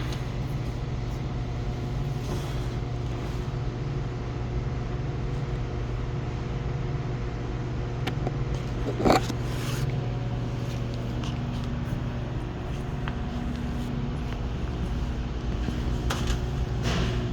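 A steady low mechanical hum, with a brief louder burst about nine seconds in.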